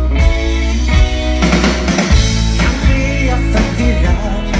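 Live rock band playing through a concert PA: drum kit hits about once a second under guitars, with a voice singing in the second half.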